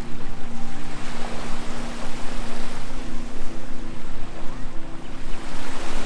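Small surf breaking and washing up the sand at the water's edge, with wind buffeting the microphone. A steady low drone runs underneath.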